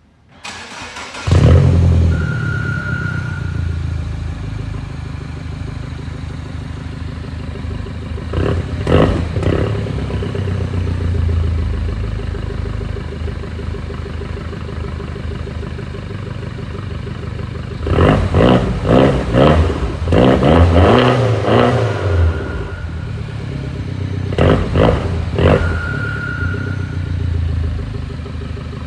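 Mini Cooper R56 four-cylinder engine starting about a second in and settling to idle through its exhaust. It is then blipped in short revs, twice near the middle and in a quick series later on. A brief high beep sounds twice, once soon after the start and once near the end.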